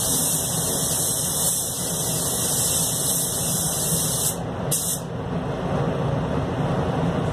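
Anest Iwata Classic Plus spray gun hissing as it sprays paint onto the car. The hiss cuts off about four seconds in, comes back for one short blast and stops, leaving a steady low rumble underneath.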